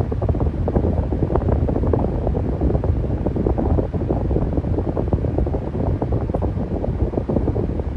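Electric fan running steadily, its airflow making a low, fluttering rush of air across the microphone.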